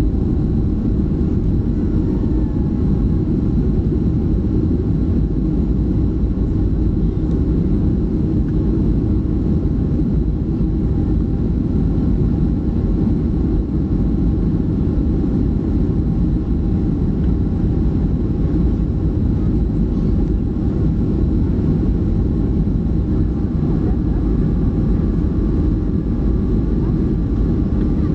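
Cabin noise inside a Boeing 737-300 climbing after takeoff: its CFM56-3 turbofan engines give a steady deep rumble, with a few faint steady tones above it.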